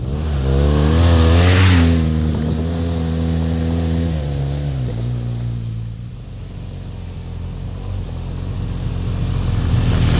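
BMW R1200GS Adventure's boxer-twin engine running as the motorcycle rides past close by, loudest with a rush of noise about a second and a half in. Its note holds steady, then drops and fades about four seconds in, and a second loud rush of the bike coming near builds up at the end.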